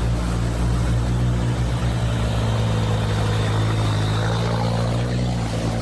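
A vehicle engine running at a steady, unchanging pitch.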